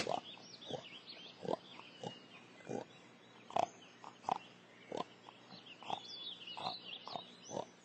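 Pig grunting in short, separate grunts, about one and a half a second, fairly quiet.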